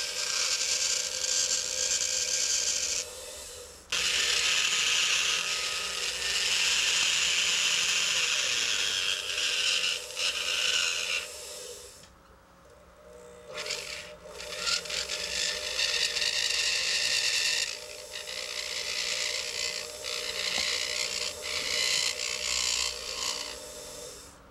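A small motorised tool grinding acrylic: a rasping hiss over a steady motor hum. It breaks off briefly about three seconds in and for about two seconds midway.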